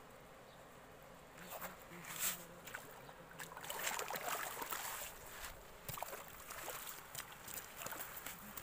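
Shallow water splashing and dripping as a small hand net is lifted out, loudest a little past the middle, among scattered sharp clicks.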